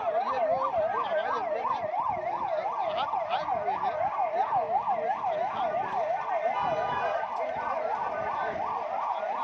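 Emergency vehicle siren in a fast yelp, its pitch sweeping rapidly up and down about three times a second, steady throughout.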